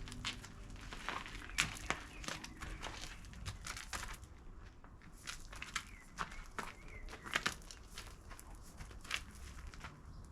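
Kitchen handling noises: irregular rustling with many light, sharp clicks and knocks over a low steady hum.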